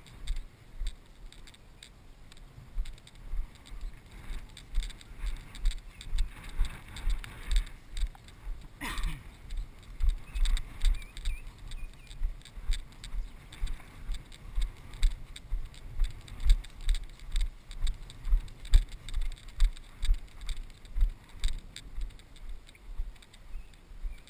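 A person's footsteps walking through grass, picked up as steady dull thumps about two a second by a body-worn camera, with faint swishing of grass. About nine seconds in there is one brief sound that falls in pitch.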